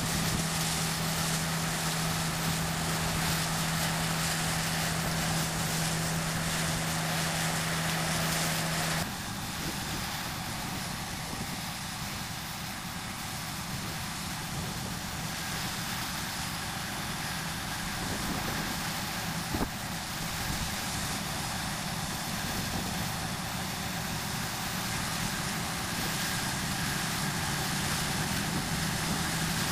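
John Deere 9660 STS combine running steadily while harvesting soybeans. A steady hum sounds for the first nine seconds or so and then stops suddenly, after which the machine's running goes on a little quieter.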